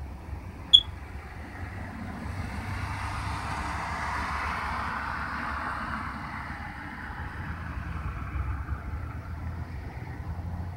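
A car driving past: its engine and tyre noise rise to a peak about four to five seconds in, then fade as it moves away. A short, sharp, high click about a second in is the loudest moment.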